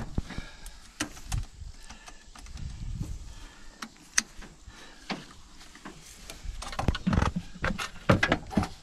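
Scattered clicks and knocks of tools being handled around a car's engine bay, louder and closer together near the end as a cordless power tool is picked up over the engine.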